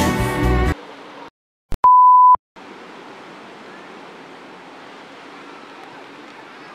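A short, loud electronic beep at one steady pitch lasting about half a second, just after a click. It is followed by the faint, even hiss of surf breaking on the beach.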